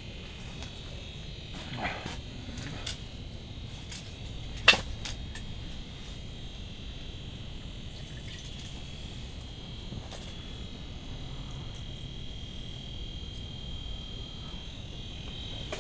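A steady high-pitched whine runs throughout, with a few short clicks and knocks. The loudest is a sharp knock about five seconds in.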